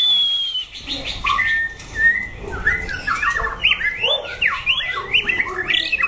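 White-rumped shama singing: a falling whistle at the start and a held note about two seconds in, then a quick, varied run of rising and falling whistled notes.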